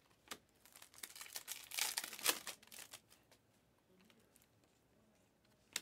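A foil trading-card pack wrapper crinkling, in a short burst about two seconds in, after a few light clicks.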